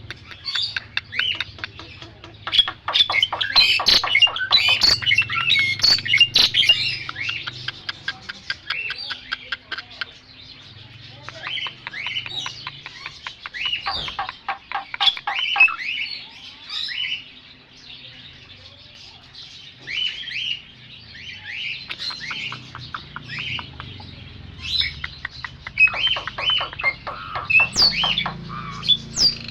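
Bird calling in rapid runs of short, high chirps, busiest in the first several seconds and again near the end, with quieter spells between.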